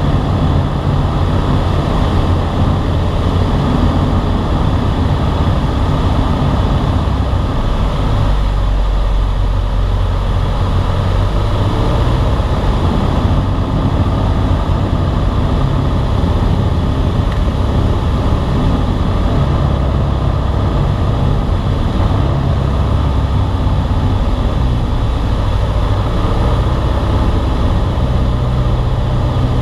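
Piston engine and propeller of a high-wing single-engine light aircraft heard from inside the cabin in cruise flight: a loud, steady drone mixed with airflow noise.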